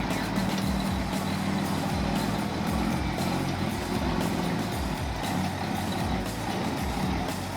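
Heavy truck engine running steadily, with background music underneath.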